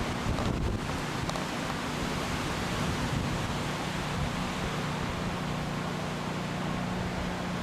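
Storm wind left over from Hurricane Wilma, blowing steadily across the camcorder microphone as an even rushing noise, with a faint low hum beneath it.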